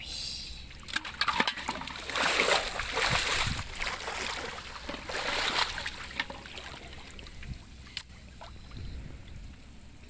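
Water splashing and sloshing in irregular bursts, with scattered small knocks. The two loudest bursts come about two and five seconds in.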